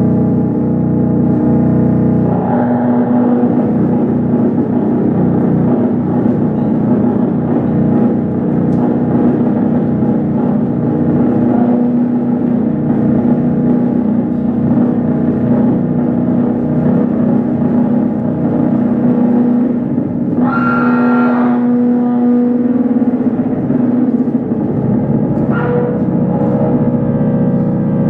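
Live drone music from an electric guitar played through effects: a dense, sustained wash of layered ringing tones over a steady low hum. A brighter ringing tone swells up briefly about twenty seconds in, and again more briefly near the end.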